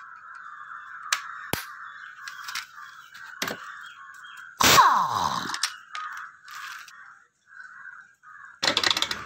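Pneumatic impact wrench fired once on the centre nut of a Vespa scooter's belt-drive cover, a burst of about a second that winds down in pitch as it lets go, over a steady hiss. A few sharp metal clicks come before it, and a run of rapid metallic clicking starts near the end.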